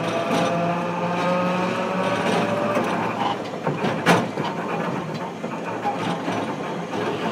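Hiroden 700 series tram, car 703, running, heard from inside the car: its traction motors give a whine that rises slowly in pitch as it picks up speed, dying away a little under three seconds in. A single sharp knock comes about four seconds in, over a steady rolling rumble.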